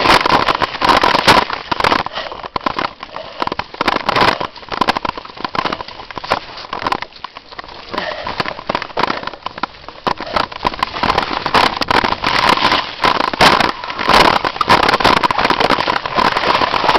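Mountain bike descending a rough forest trail: a dense, irregular clatter of clicks and knocks as the bike and camera rattle over bumps, over a rushing noise that swells and fades with speed.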